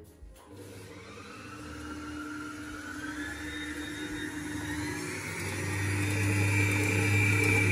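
Electric stand mixer running with its whisk, the motor whine rising steadily in pitch and getting louder as the speed goes up, with a step up in loudness about five and a half seconds in.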